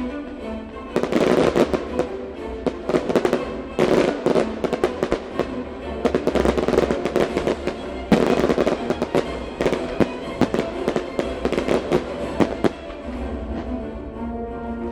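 Rapid salvo of firework bangs and crackles, starting about a second in and stopping shortly before the end, over the display's accompanying music.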